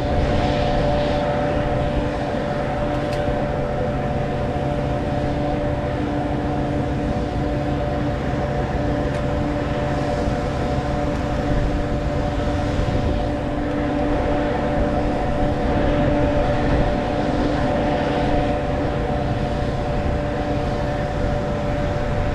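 A motor or engine running steadily, a constant hum with an even rumble and no change in speed.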